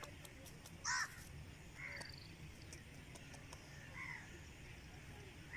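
Bird giving a few short, harsh calls spaced irregularly about one to two seconds apart, the first loudest.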